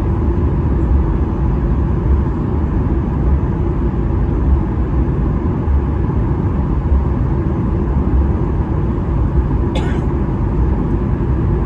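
Cabin noise of a Boeing 737-800 taxiing, heard inside the cabin by the wing: the CFM56-7B engines at idle give a steady low rumble with a faint steady hum above it. A brief sharp noise about ten seconds in.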